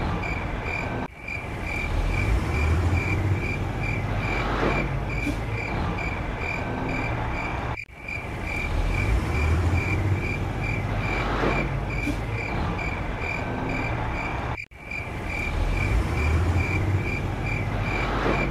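Night ambience: crickets chirping steadily at about four chirps a second over a low rumble of distant traffic. The sound drops out briefly three times, about every seven seconds, as the looped recording restarts.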